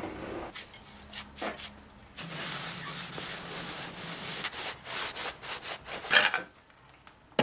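Steel parts of a homemade lathe steady rest being shifted and scraped against each other by hand, with scattered knocks and a louder clatter about six seconds in.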